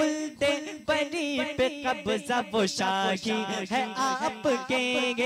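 A man singing a manqabat, devotional verse in praise of Imam Hussain, without accompaniment. His voice holds long melodic notes that bend up and down in pitch.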